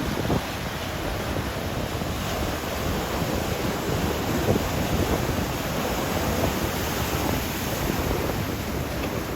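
Ocean surf breaking on a beach, swell building ahead of an approaching typhoon, with wind buffeting the microphone.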